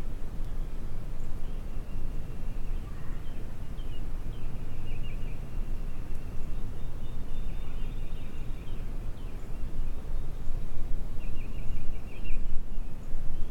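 Wind rumbling on the microphone, with a faint bird calling in quick runs of short high notes three times.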